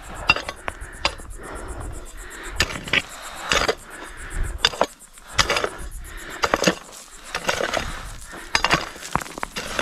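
A hand digging tool striking into soil again and again, about one or two blows a second at an uneven pace, with occasional clinks: an irrigation trench being dug by hand.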